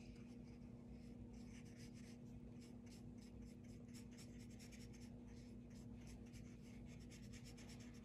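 Watercolour paintbrush stroking on paper: a quick, irregular run of faint soft swishes and scratches, over a low steady hum.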